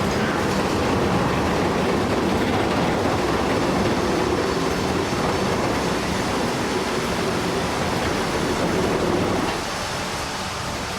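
Steady mechanical rumble of heavy machinery running, with a faint steady hum; it drops a little in level about nine and a half seconds in.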